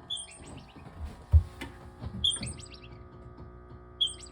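High-pitched squeaking chirps from an unseen small animal, in three short runs of rapid notes about two seconds apart. A single dull thump, the loudest sound, comes about a second and a half in.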